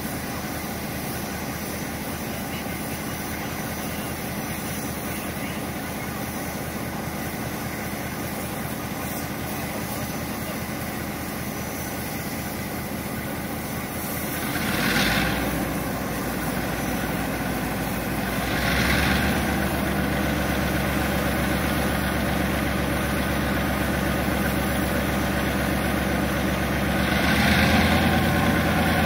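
Diesel locomotive engine idling with a steady low hum, stepping up in pitch and loudness about halfway through, again a few seconds later and once more near the end, each step coming with a short hiss.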